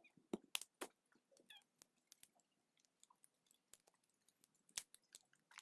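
Quiet, with scattered sharp clicks and crunches: a few louder ones in the first second and one near the end of the fifth second.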